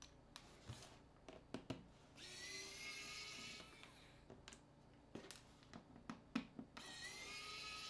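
Pen-style electric precision screwdriver whirring twice, about a second and a half each time, its pitch rising as the motor spins up, as it drives the screws out of a smartphone's casing. Light clicks and taps of the tool and small parts come in between.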